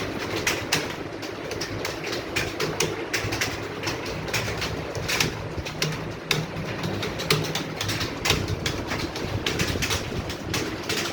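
Many computer keyboards clattering at once as a roomful of people type continuously, with dense, irregular keystroke clicks over a steady low hum.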